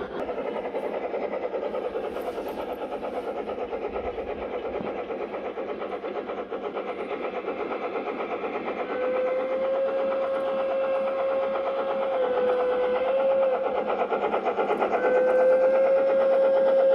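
G-scale garden railway train running on the track: a steady rattle of wheels and drive, joined about halfway by a steady whine that dips briefly and returns, getting louder as the train comes closer.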